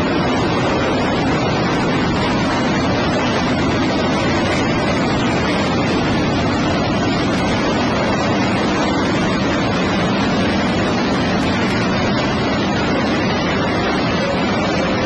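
Engines of a field of race cars running together during a race, heard as a steady, dense wash of noise with no single engine standing out, muffled and smeared by a poor-quality recording.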